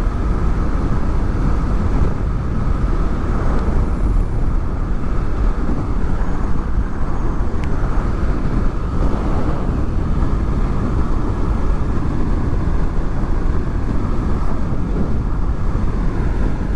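Steady wind rush and road noise at furry-windshield-covered microphones on a moving Honda VFR800 V4 motorcycle, its engine running underneath the wind.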